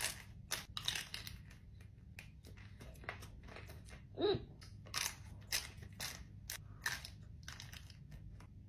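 Close-up chewing of a chocolate-coated ice cream bar: an irregular run of sharp crackles and crunches as the hard chocolate shell breaks between the teeth. A brief low hum of voice a little past four seconds in.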